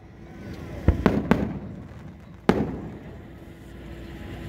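Fireworks bursting: three sharp bangs in quick succession about a second in, then a single louder bang a little past the middle.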